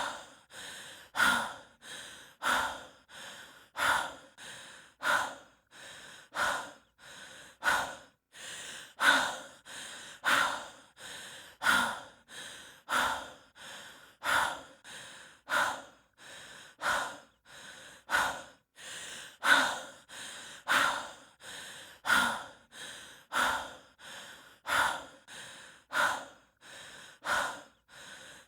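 A person breathing heavily and rhythmically, as a hiker does from exertion: a quieter breath followed by a sharp, louder huff, repeating evenly about three times every four seconds.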